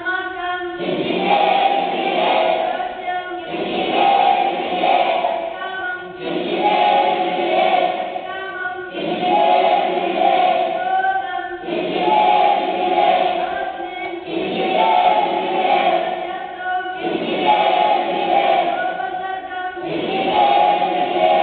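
A large group of voices chanting in unison, the same short phrase repeating about every two and a half seconds with a brief pause between repeats.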